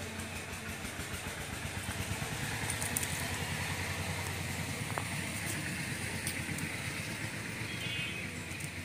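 An engine running steadily at one speed, an even, rapid low pulse.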